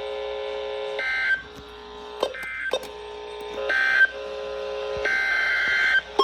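Emergency Alert System SAME data bursts, harsh digital screeches: three short ones about a second and a half apart, the end-of-message code closing the severe thunderstorm warning, then a longer burst near the end that opens the next alert. A steady low two-note tone sounds beneath them.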